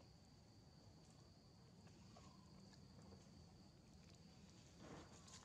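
Near silence: faint outdoor background with a steady thin high-pitched hum and a faint soft sound near the end.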